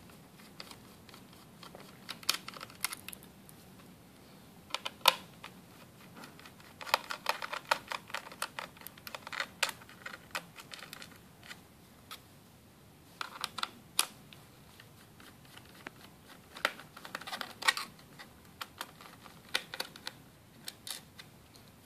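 Small Phillips screwdriver clicking and scraping in the corner retaining screws as they are unscrewed from the plastic underside of an Asus Eee PC 1005HA netbook. Scattered clusters of small sharp clicks, separated by quieter pauses.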